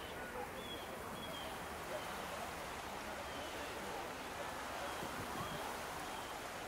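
Outdoor ambience: a steady rushing hiss with birds chirping faintly now and then.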